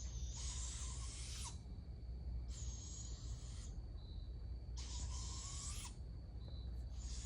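Juvenile barred owls giving raspy, hissing screeches, the begging call of owlets being fed. Each screech lasts about a second, repeating three times with a fourth starting near the end.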